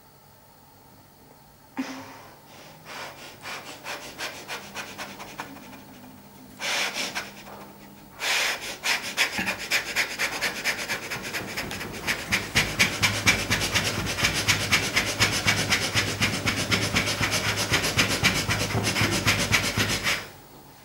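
A person's limbs rubbing and shuffling rapidly against fabric bedding in involuntary, self-driven movements. A sharp knock about two seconds in starts short spells of fast rhythmic strokes, and from about eight seconds in the rubbing runs on continuously and louder before it stops suddenly near the end.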